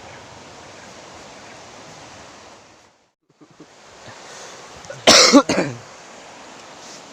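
A steady rush of river water, which cuts out briefly about three seconds in, and a person's loud cough about five seconds in.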